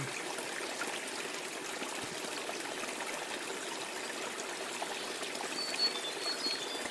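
Steady trickling, running water, even and unbroken, with a few faint high peeps near the end.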